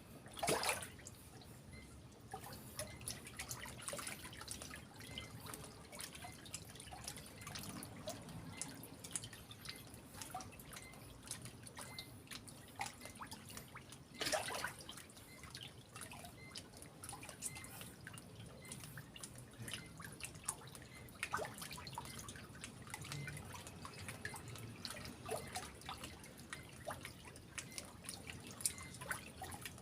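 Water dripping irregularly, with two louder drips or splashes, one just after the start and one about halfway through.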